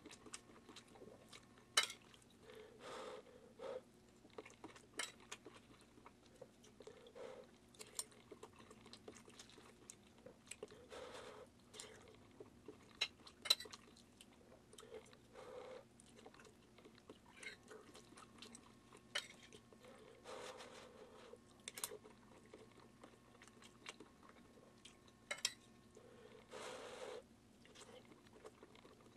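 Quiet eating from a plate of eggs: metal cutlery clicking and scraping against the plate every few seconds, with chewing and mouth sounds in between. A faint steady hum lies underneath.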